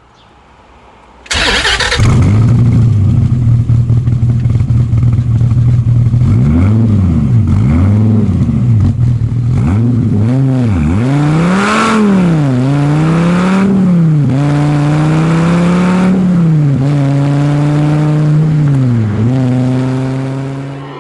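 Dodge Viper ACR's 8.4-litre V10 with side-exit exhaust fires up with a sudden loud catch about a second in and idles. It is then blipped repeatedly, the note rising and falling with each rev, and settles back to idle near the end.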